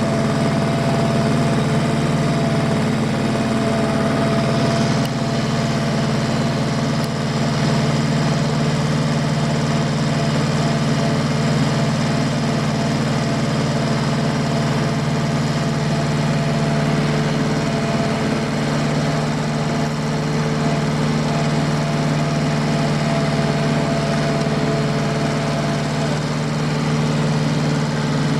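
Diesel tractor engine running at a steady speed, a constant drone with a faint steady whine above it.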